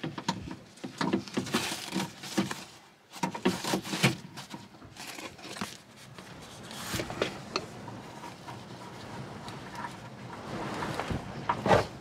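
Foam vapour barrier on the inside of a Fiat 500 door being peeled back by hand: a dense run of sharp clicks and crackles for the first four seconds or so, then softer handling sounds, with one louder knock near the end.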